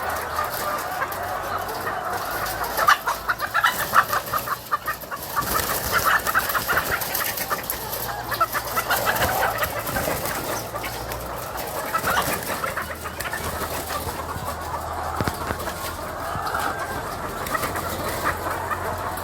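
A large flock of chickens clucking and calling at once, a dense continuous chatter that is busiest in the first half.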